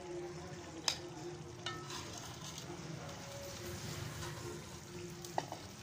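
Palak gosht (spinach and meat curry) bubbling and sizzling in an aluminium pot as it is stirred and served. A metal spoon clinks sharply against the pot twice, about a second in and near the end.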